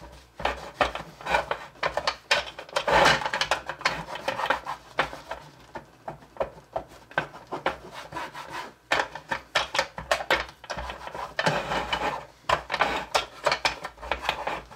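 Paper towel rubbed hard back and forth over a hard plastic game base in quick scrubbing strokes, cleaning off grime. The strokes are loudest about three seconds in and ease off for a while in the middle.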